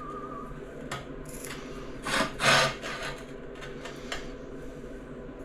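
Handling noise from tile work on a hard surface: a short click about a second in, then two brief scraping rubs a little after two seconds in, as a tile is slid or rubbed.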